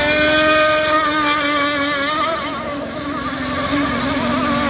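Scale RC racing hydroplane's engine running near full speed as the boat laps the course, a high buzzing whine that wavers up and down in pitch.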